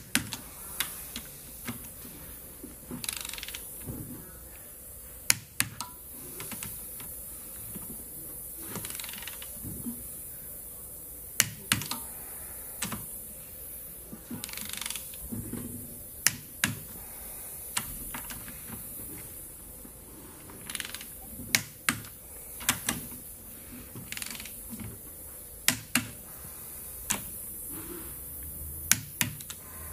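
Click-type torque wrench bringing ARP head-stud nuts up to 40 foot-pounds on a Land Rover 4.0/4.6 V8's aluminium cylinder head. Sharp double clicks come every few seconds as the wrench breaks at its setting on each nut, with softer ratcheting in between.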